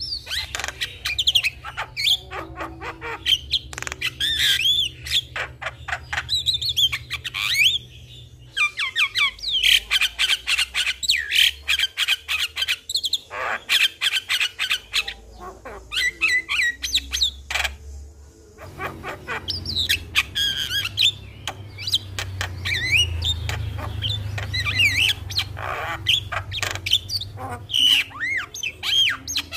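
Javan myna singing a fast, varied song of gliding whistles, squawks and clicking chatter, with a short lull about two-thirds of the way through.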